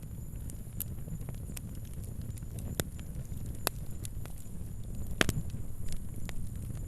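Fire crackling: irregular sharp pops and snaps over a low, steady rumble of flame, with the loudest snaps about three and five seconds in.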